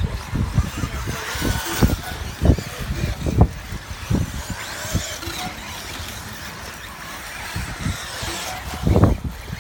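Electric radio-controlled off-road buggies racing on a dirt track, their motors and tyres making a steady high hiss and whine that swells and fades as cars pass, with irregular low thumps throughout, the strongest near the end.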